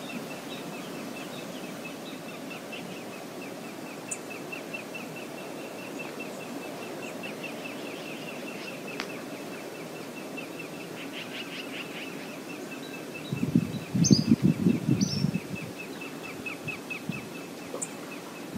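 Outdoor river ambience with a steady run of rapid, evenly spaced high chirps or ticks throughout and a few short bird calls. A little past the middle, a louder low rumble lasts about two seconds.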